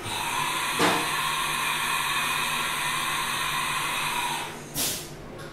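CNC vertical machining center between cuts with its coolant off, changing tools from its carousel. A clunk about a second in, then a steady mechanical whine for about four seconds that fades out, and a short burst of hiss near the end.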